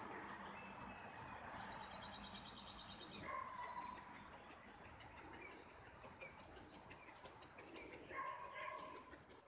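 Birds calling in the background: scattered short high chirps, a quick trill about a second and a half in, and a few short steady whistled calls, one near the end.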